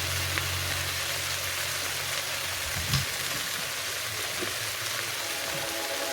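Shrimp frying in garlic margarine in a pan: a steady, even sizzle, with one brief knock about three seconds in.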